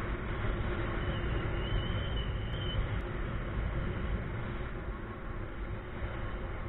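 Wind rushing over the microphone of a harness-mounted action camera in paraglider flight: a steady rush of noise, heaviest in the low end.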